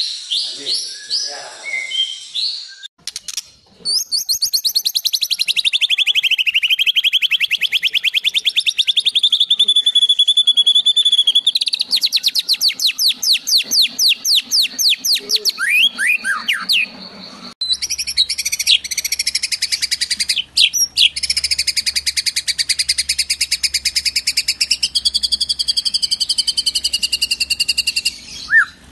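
White-rumped shamas singing loudly, a fast continuous song of long rapid trills and rattling runs of repeated notes, changing abruptly twice where different birds' recordings are joined. The song is filled with imitations of other birds, such as the canary, that the shamas have learned. A low steady hum runs under the last part.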